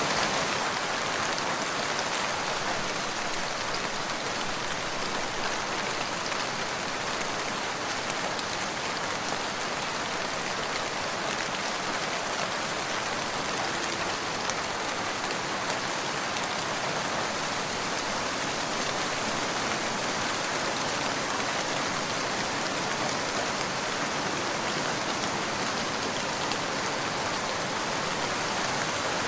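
Steady rain falling, a constant even patter of raindrops on a surface with no let-up.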